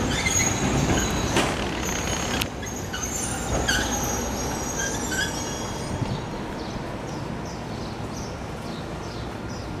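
Double-decker electric tram coming to a stop: rolling and braking noise with short, high metallic squeals. The noise drops about two and a half seconds in, leaving a quieter steady rumble as the tram stands, with a few more brief squeals soon after.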